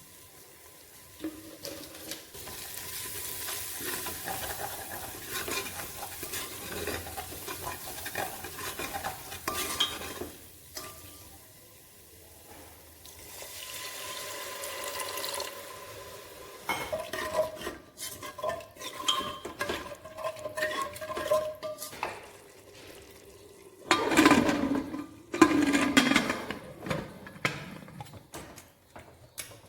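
A spoon stirring and scraping in a metal cooking pot while the tadka sizzles, with repeated clinks of the spoon against the pot. Louder knocks come near the end.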